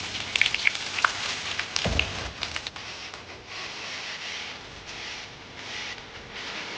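Food sizzling in a wok, the hiss swelling and fading, with sharp clicks and scrapes of a spatula in the first few seconds and one dull thump about two seconds in.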